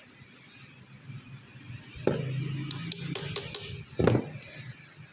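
Metal parts clicking and knocking against an industrial sewing machine head as a linkage part is worked into place by hand: a knock about two seconds in, a quick run of sharp clicks, then another knock a second later.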